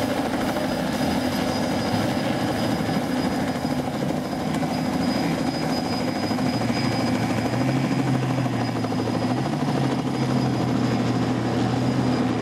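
Steady drone of a helicopter flying overhead, with personal watercraft engines running as jet skis pull away from the beach; a lower engine tone joins about six seconds in.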